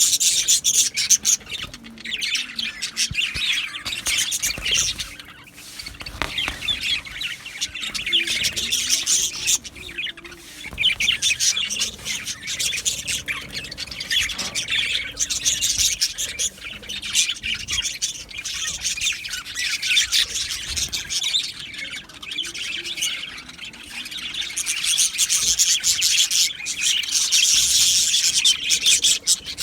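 A flock of budgerigars chattering and chirping together, a dense mass of quick high chirps and warbles with occasional squawks, swelling and easing in waves.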